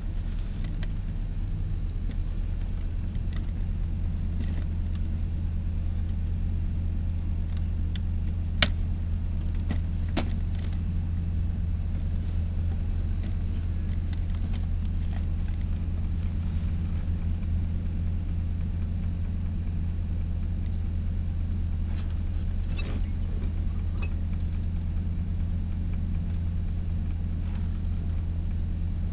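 Car engine idling while stopped, heard from inside the cabin: a steady low hum. Two sharp clicks come about a second and a half apart roughly a third of the way in.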